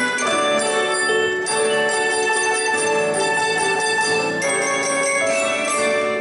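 A student ensemble playing music of ringing bell-like tones with keyboards, in sustained chords that change every second or so.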